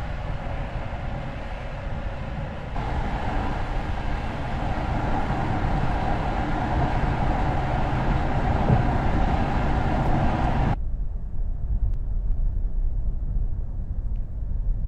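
Steady rumble and road noise of a moving vehicle, changing abruptly about 3 seconds in and again about 11 seconds in, where the higher part drops away and only the low rumble remains.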